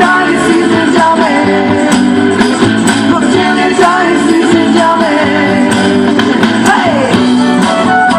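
Loud rock-style song with a singing voice and guitar; about seven seconds in, the voice slides down in pitch.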